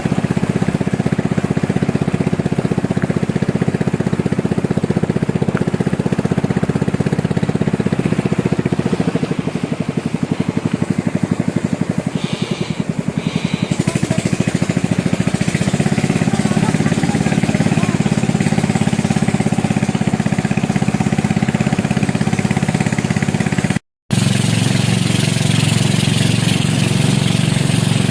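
A small engine running steadily, its sound easing off for a few seconds in the middle before coming back up. The sound cuts out for an instant near the end.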